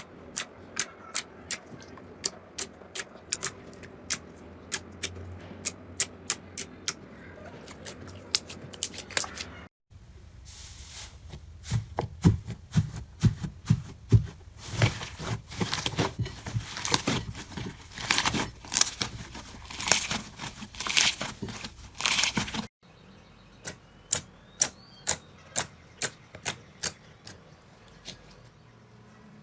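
Slime being squeezed and pressed by hand, giving a run of sharp popping clicks, about three a second. From about ten seconds in to about twenty-three it turns into dense crackling and squelching, then thins back to scattered clicks.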